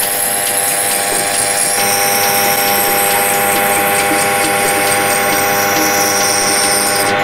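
Grinding wheel running steadily with a steel scissor blade pressed against it, grinding the edge and throwing sparks.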